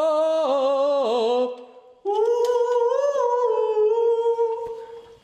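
A man's voice holding two long, wavering sung notes, a short one and then a longer, higher one, as a mock-ghostly wail. It rings in a reverberant room.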